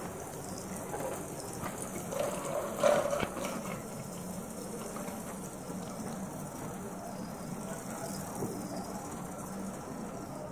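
Running water during a kitten's bath: a steady rush of water, with a short louder sound about three seconds in.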